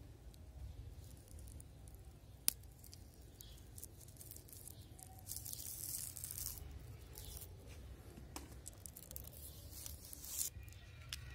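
White coaxial cable being stripped by hand: the slit plastic jacket is peeled away and the aluminium foil shield crinkles in short rustling bursts. One sharp click comes about two and a half seconds in.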